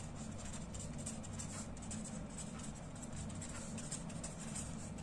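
Pen writing on paper, a run of short strokes as words are written out.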